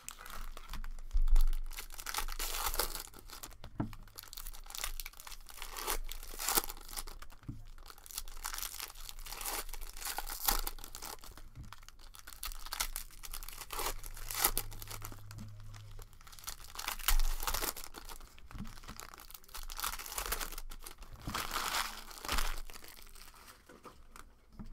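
Plastic trading-card pack wrappers being torn open and crinkled by hand, in repeated rips and rustles.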